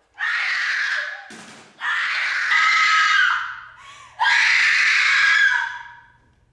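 A woman screaming and wailing in anguish: three long, loud cries, the last trailing off about a second before the end.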